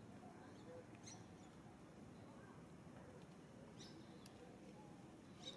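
Near silence with a few faint, short, high-pitched animal squeaks or chirps, one about a second in and a cluster near the end.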